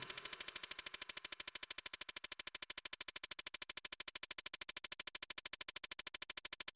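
Electronic music ending in a fast, evenly repeating synthesizer pulse, about twelve a second, much quieter than the full track just before it.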